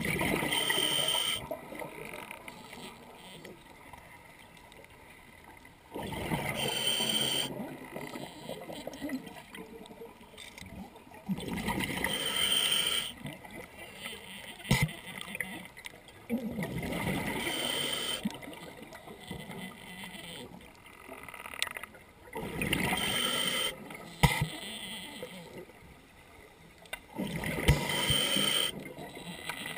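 Scuba diver breathing through an open-circuit regulator. The demand valve hisses on each inhale and exhaled bubbles gurgle out, in a steady cycle of about one breath every five to six seconds.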